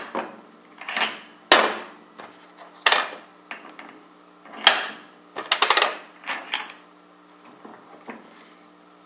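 Steel beam-trolley parts (wheeled side plates, center link and spacer washers) knocking and clinking against a metal table top: a string of separate knocks, several with a short metallic ring, a quick cluster of them about five to six and a half seconds in, then fading to faint handling.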